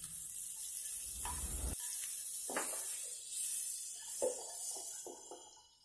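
A lump of butter sizzling as it melts in a hot pan, with a steady hiss that fades out near the end.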